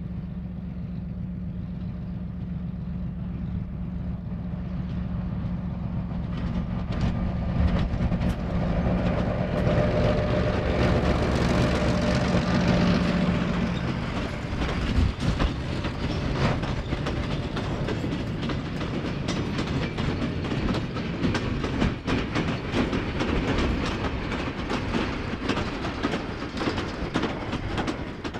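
Y-class diesel locomotive running under power, its engine note growing louder as it draws near over the first half. After that the goods wagons roll past with a steady clickety-clack of wheels over rail joints.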